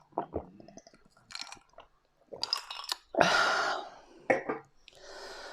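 Bottle of sparkling water spraying out over the drinker: a loud hiss of about a second, about three seconds in, with short clicks and mouth noises around it.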